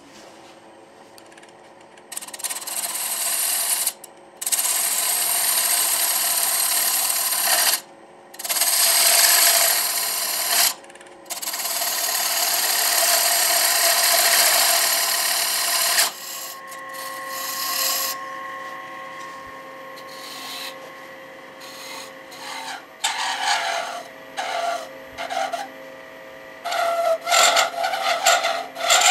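Wood lathe running with a turning tool cutting the bottom of a spinning maple platter: long continuous hissing cuts broken by short pauses, over the lathe's steady hum. After about halfway the cuts grow quieter and shorter, coming as quick strokes near the end.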